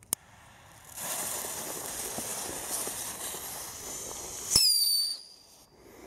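Small firework stick rocket: a lighter clicks, then about a second in a steady hiss starts as it burns and flies. About four and a half seconds in it ends in a sharp bang, the loudest sound, followed by a brief high whistle.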